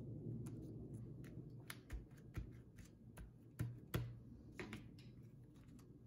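Scattered light clicks and taps of metal tweezers and small paper pieces against a cutting mat during hand crafting, with two sharper taps a little past the middle.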